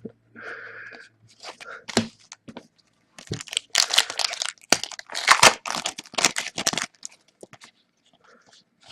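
Wrapper of a Cryptozoic Sons of Anarchy trading-card pack torn open and crinkled, with scattered crackles at first and then a dense run of tearing and rustling from about three seconds in, which ends about two seconds before the close.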